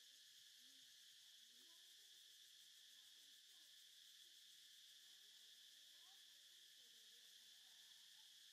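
Faint, steady high-pitched insect chorus, like crickets, droning without a break.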